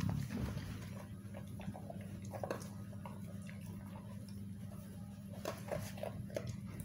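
Faint scattered clicks and rustles of a dog eating from a plastic bowl and a plastic bag being handled, over a steady low hum.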